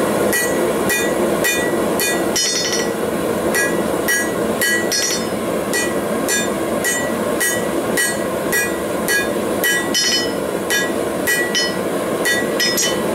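Hand hammer striking a red-hot steel bar on an anvil in a steady rhythm of about two to three blows a second, each with a short metallic ring, while drawing out the tip for a forged leaf. Underneath runs the steady rushing noise of a propane forge burner.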